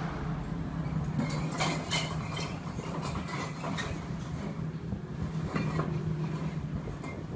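Hot-air rework station blowing at a laptop motherboard, a steady low hum, with a few light metallic clinks and ticks between about one and a half and six seconds in.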